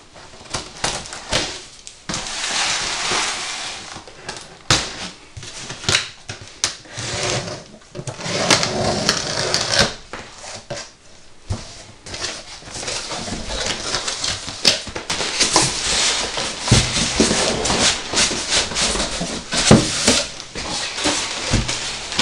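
A cardboard computer-case box being opened: packing tape slit with a blade, flaps pulled back and plastic wrapping crinkling inside. Many sharp knocks and scrapes come from the handling.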